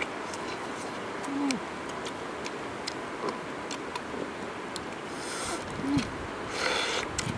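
Shells of boiled goose eggs being cracked and peeled by hand: scattered small clicks, with a short crackling rustle near the end. Twice, a brief hummed 'mmm' from someone eating, over a steady outdoor hiss.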